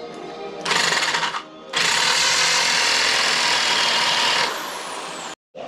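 Electric drill boring a bolt hole through wood: a short run of about half a second, a brief pause, then a longer run of nearly three seconds. Background music plays underneath.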